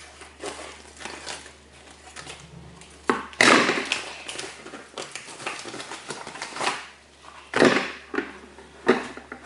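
Packaging being handled and opened, rustling and crackling in irregular bursts, loudest about three and a half seconds in and again near eight seconds.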